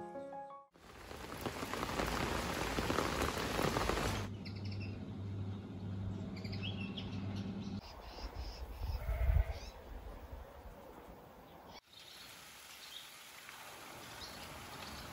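Outdoor garden ambience in short cuts: a loud rushing noise for the first few seconds, then small birds chirping over a low steady hum.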